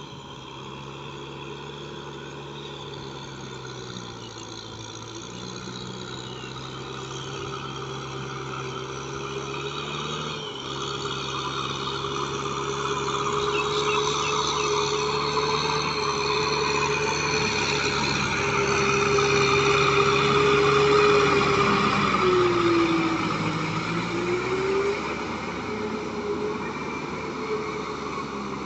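Kubota M6040SU tractor's diesel engine running under load as its rotary tiller churns through flooded paddy mud. It grows louder as the tractor approaches, and near the end the engine note dips briefly and recovers.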